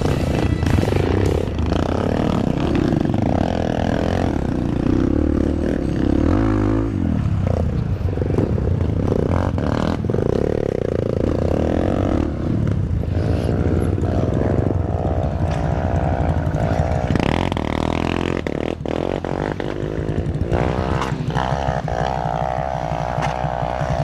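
Honda CRF150L's single-cylinder four-stroke engine running at low trail speed, the revs rising and falling again and again as the throttle is worked, with scattered knocks and rattles from the bike over rough ground.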